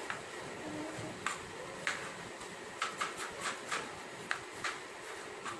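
Kitchen knife chopping a red onion into large chunks on a plastic cutting board: about a dozen short, irregularly spaced knocks as the blade cuts through and hits the board.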